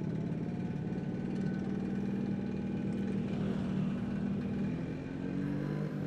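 Vespa PX 150's single-cylinder two-stroke engine running at low, steady revs, its pitch wavering slightly about five seconds in.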